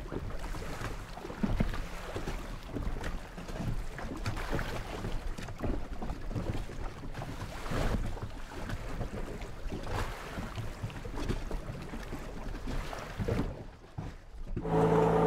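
Water sloshing and splashing unevenly, with wind noise on the microphone. Near the end a motorboat engine cuts in and runs steadily.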